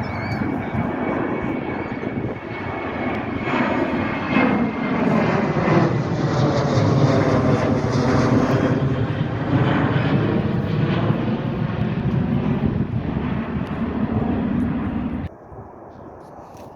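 Jet airliner's engines at high thrust as it climbs past, a loud, broad roar that swells and sweeps in tone as the aircraft goes by, then cuts off suddenly near the end.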